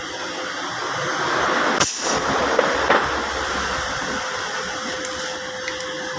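Steady background hum and hiss with a few sharp metallic clicks, from bolts and tools being handled while fitting bolts to a CVT transmission case.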